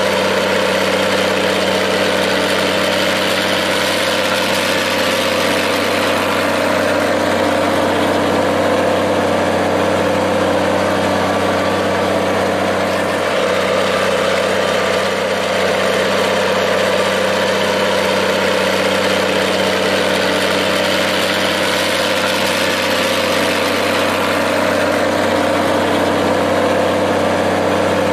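Minneapolis-Moline G-1350 tractor engine idling steadily.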